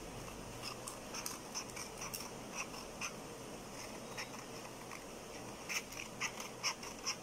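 Scissors snipping through a sheet of coloured paper in a series of short, crisp cuts, coming closer together near the end.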